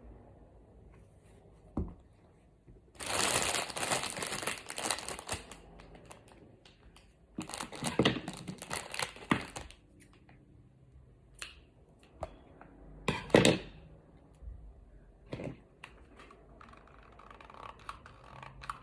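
Crinkling and rustling of packaging or plastic being handled, in two longer stretches, with a few sharp knocks and taps in between.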